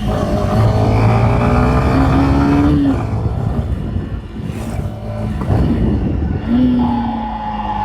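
Yamaha Fazer 150 single-cylinder motorcycle engine running with a pitched moaning whistle over it. The whistle rises in pitch for the first few seconds, fades, and returns near the end with a steady higher whistle on top. It is an unexplained noise on a new bike that a dealership could find nothing wrong with.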